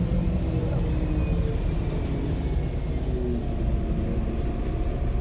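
Interior of a MAZ-105 articulated diesel city bus under way: a steady low engine and road rumble. The engine tones fall in pitch over the first three seconds or so, and a new, higher tone comes in past the middle.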